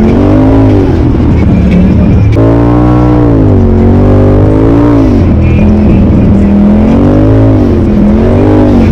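Polaris RZR Turbo side-by-side's turbocharged engine running under load, loud and close, its revs rising and falling repeatedly as the throttle is worked over rough trail.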